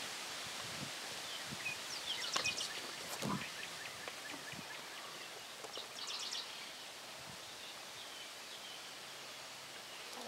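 Quiet outdoor ambience: a songbird sings a short rapid trill twice, about two and six seconds in. A faint low drone from the distant approaching diesel locomotive sets in about halfway through.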